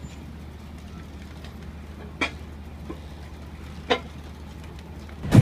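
Small harbour ferry's diesel engine idling at the pier with a steady low drone. Two sharp knocks come about two and four seconds in, and a louder knock right at the end.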